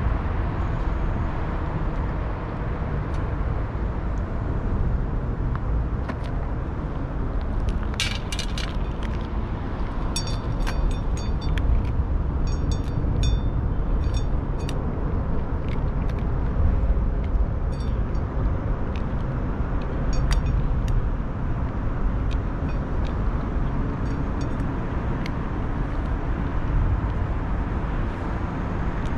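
Steady low rumble of road traffic, with a run of sharp clicks and short metallic ringing ticks about eight to fifteen seconds in, as dry kibble lands in a steel dish and a tabby cat eats from it.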